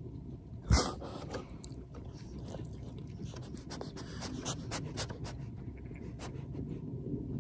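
A dog panting close up, with a sharp knock about a second in and many small clicks and smacks throughout.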